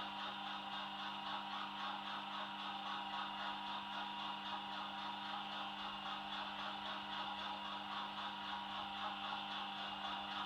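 Class 50 diesel engine idling, an English Electric 16CSVT simulated by a DCC sound decoder and played through a model locomotive's small speaker. It holds a steady, unchanging note with an even pulse, and the locomotive has not yet started to move off.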